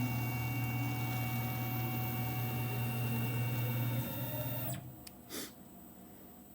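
Tormach 1100M CNC mill's axis drive motors running steadily with a whining hum as the table is jogged at slow speed, stopping about four to five seconds in. A short soft noise follows in the quiet.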